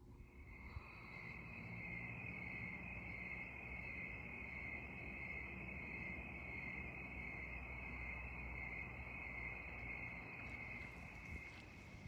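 A chorus of crickets trilling, one steady unbroken high-pitched chirr, over a faint low rumble.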